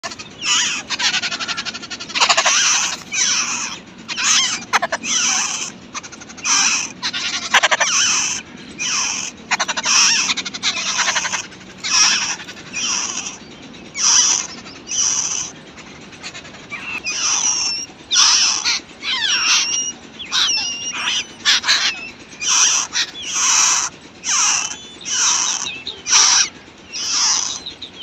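Babbler nestlings begging in the nest: a long, steady run of short raspy calls, one about every half second.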